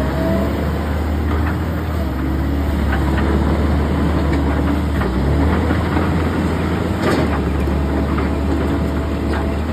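Komatsu PC130 excavator's four-cylinder diesel engine running steadily with a deep hum, a few light clicks and knocks, and a faint steady whine coming in near the end.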